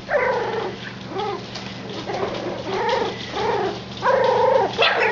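Dachshund puppies whining and yipping in a string of about seven short calls that rise and fall in pitch, over a steady low hum.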